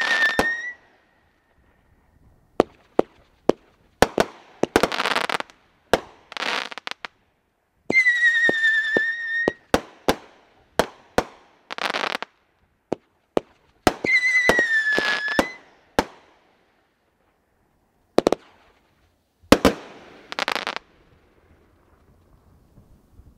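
World Class "Say What???" consumer fireworks cake firing: a rapid string of sharp bangs mixed with three whistling shots, each about a second and a half long and dipping slightly in pitch, and several short bursts of crackling stars. The barrage stops about 21 seconds in, leaving only a few faint pops.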